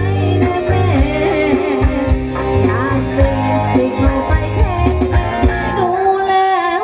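A woman singing a song with a live band, electric bass and a steady beat underneath, amplified through a three-way outdoor PA system with a heavy sub-bass low end.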